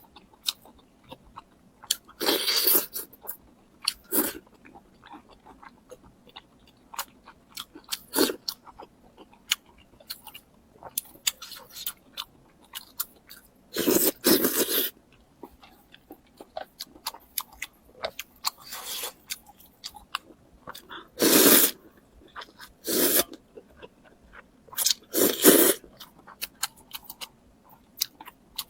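Crunchy food being bitten and chewed close to the microphone: a run of small mouth clicks broken by several loud crunches, the longest of them around the middle and near the end.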